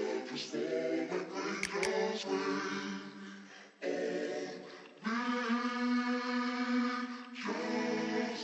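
Singing without instruments, with long held notes; one note is held steady for about two seconds past the middle.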